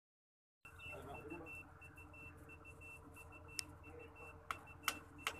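Handheld water detector beeping steadily, a short high beep about four times a second, with several sharp clicks in the second half.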